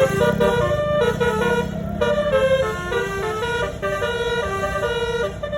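Bus's Basuri telolet horn, a multi-tone horn, playing a quick melody of short stepped notes over the low rumble of the bus's engine.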